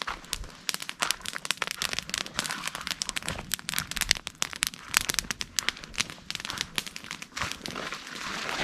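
Dense, irregular crinkling and rustling close to the microphone: many small crackles in quick succession.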